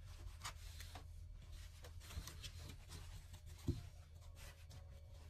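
Soft rubbing and rustling of knit fabric being handled at a sewing machine, with faint clicks and one short knock about two-thirds of the way through, over a steady low hum.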